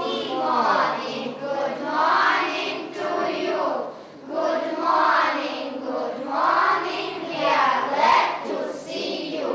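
A class of schoolchildren singing a song together as a group, in phrases a second or two long.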